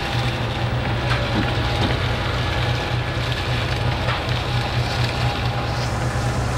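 Fishing boat's engine droning steadily under a constant hiss of wind and sea on deck, with a few faint knocks from sablefish traps being handled.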